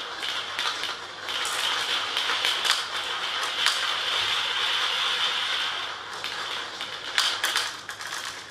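Marbles spinning round inside a plastic funnel: a steady rolling whirr with frequent clicks as they knock against each other and the plastic. The whirr fades about six seconds in, and a few sharper clacks follow as the marbles settle and drop through.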